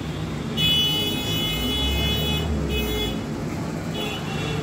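Vehicle horns honking in street traffic: one long high horn blast starting about half a second in and lasting nearly two seconds, then two shorter toots, over a low traffic rumble.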